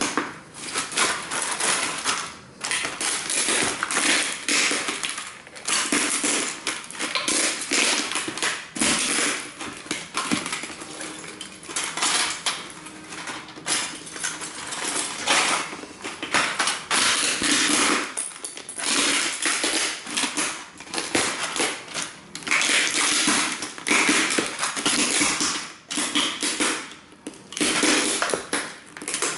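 Cowboy boots stomping and grinding model train buildings underfoot: near-continuous crunching and crackling of small pieces breaking and scraping together, with short pauses between bouts.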